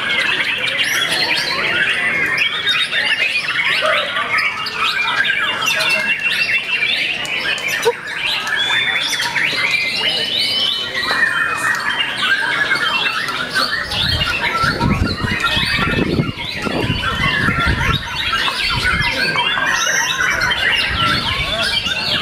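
Many white-rumped shamas singing at once in a contest, a dense overlapping tangle of whistles, trills and chattering calls. Some low rumbling joins in about two-thirds of the way through.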